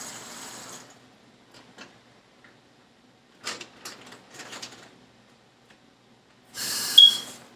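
Kitchen tap water running, shut off about a second in. Then scattered clicks and a run of clattering knocks from things being handled, and near the end a short gush of noise with one sharp, high squeak.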